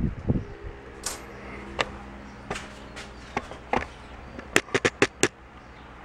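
Light clicks and taps of tools and a small metal part being handled at a workbench, with a quick run of about five sharp clicks near the end.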